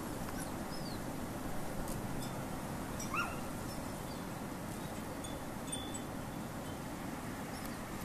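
Steady rushing of blizzard wind, with a short high whine or chirp about three seconds in and a few fainter high peeps.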